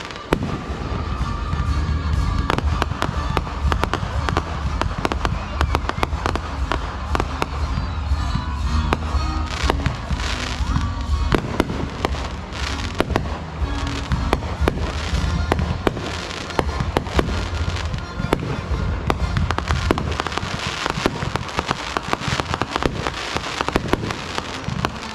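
Fireworks display: a steady run of bangs and crackling bursts, many in quick succession, over music with a steady bass.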